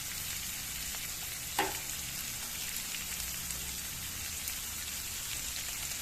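Chopped boiled chicken liver and gizzard sizzling steadily in oil in a stir-fry pan with shrimp and spice paste, with one short knock about one and a half seconds in.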